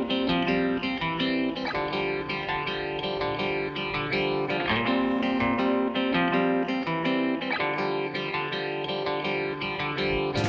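Background instrumental music of plucked guitar notes.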